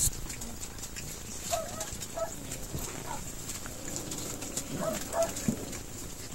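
Seven-week-old mixed-breed puppy giving short, high-pitched squeaky yips, about five spread over a few seconds.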